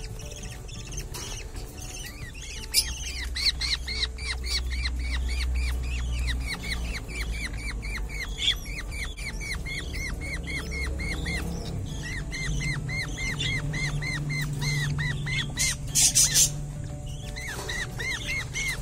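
Young budgerigars (parakeets) in a wooden nest box chirping in a fast, even series, about four chirps a second, with a brief break. A loud scratchy rustle comes near the end.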